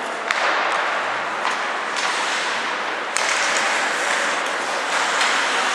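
Ice hockey play in an indoor rink: a steady hiss of skates on the ice, with several sharp clacks of sticks and puck.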